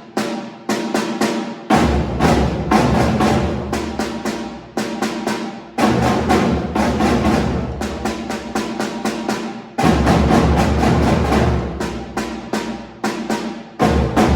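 Music carried by drums and percussion: a dense run of sharp strikes over a strong bass.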